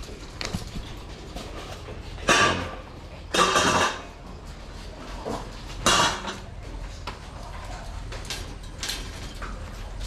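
Stainless steel dog bowls and wire cage doors clattering as the bowls are handled and set into the cages: three loud metallic clatters about two, three and a half, and six seconds in, with lighter clicks and rattles between.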